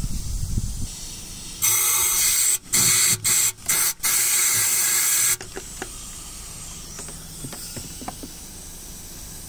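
Compressed-air blow gun blasting in about five short bursts over four seconds, the first and last the longest, blowing out the empty injector seat of a Ford 2.0 TDCi diesel head; a fainter hiss and a few light clicks follow.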